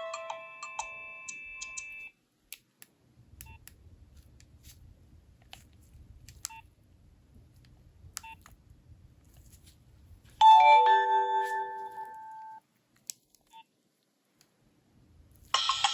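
Nokia 3300b ringtones playing from the phone's speaker. One melody ends in the first two seconds, then come several seconds of faint clicks. About ten seconds in, a short falling run of electronic tones lasts about two seconds, and near the end a busier polyphonic ringtone starts.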